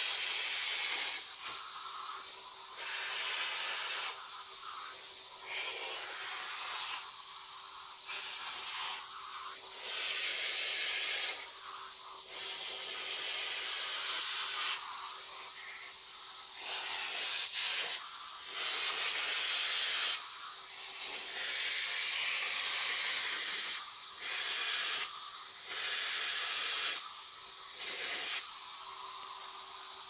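Vacuum cleaner running: a steady motor tone under a rushing airflow hiss that swells and drops irregularly every second or two.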